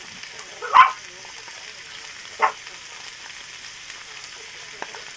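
Meat sizzling on a grill over a solid-fuel brazier: a steady frying hiss. Twice it is broken by a short, loud, sharp sound, a little under a second in and again about two and a half seconds in.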